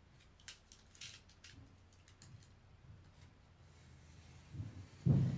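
Utility knife trimming shoji paper along a wooden frame: a few short scratchy clicks of the blade through the paper in the first couple of seconds, then a louder dull thump and rustle near the end.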